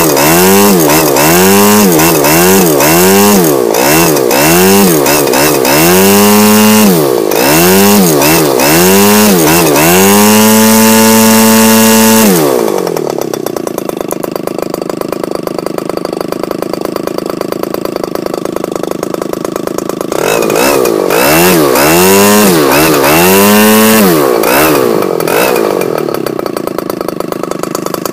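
ASP Magnum SC 180 two-stroke model-aircraft engine, converted to run on petrol, turning a propeller and being revved up and down over and over. It holds high revs briefly, then drops to a steady idle about twelve seconds in. About eight seconds later it is blipped up several more times before settling back to idle near the end.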